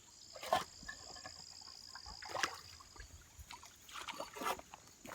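A small Caterpillar backhoe's bucket working wet ground at a spring, giving a few separate sloshes and knocks about half a second in, midway and near the end, over a faint low engine hum. Crickets or other insects chirr steadily throughout.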